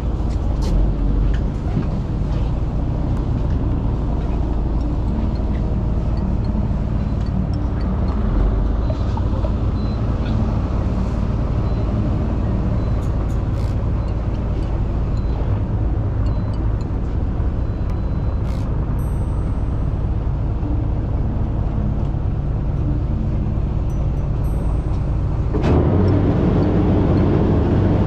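Fishing boat's engine running steadily with a low rumble, mixed with wind and sea noise; it gets a little louder and fuller near the end.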